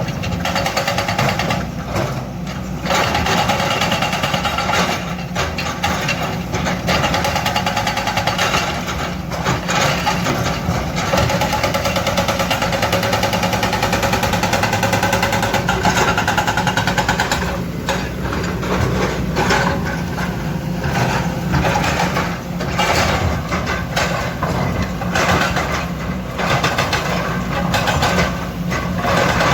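Kobelco hydraulic excavator working, its diesel engine running steadily under load with brief dips now and then.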